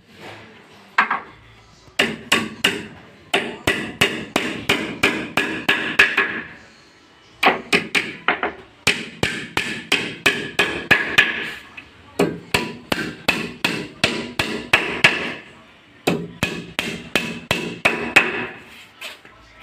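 Hammer blows on wood: quick strikes at about three a second, in runs of a few seconds broken by short pauses.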